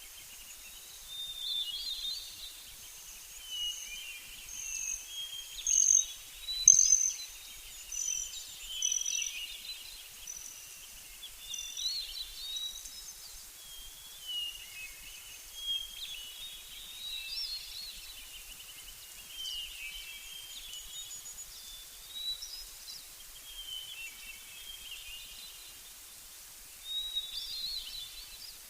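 Songbirds singing outdoors: overlapping short chirps and trills repeating every second or so, with the loudest bursts about six to seven seconds in.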